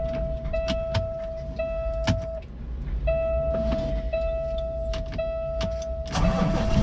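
An electronic warning tone beeps in long pulses about once a second, with one short break partway through, over a Peterbilt 389's diesel engine idling. A few light clicks sound. The engine grows louder near the end.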